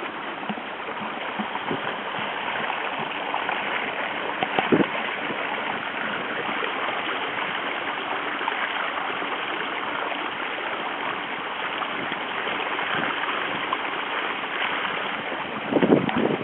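Water rushing and splashing steadily along the hull of a sailing proa under way under sail, with one brief knock about five seconds in.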